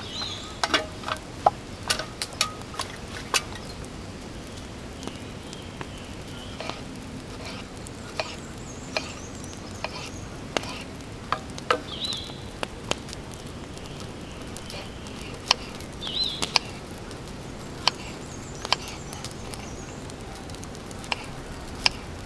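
Wood campfire crackling, with irregular sharp pops and snaps.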